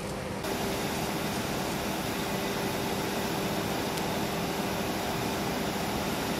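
Steady hiss with a faint low hum, which gets a little louder and brighter about half a second in.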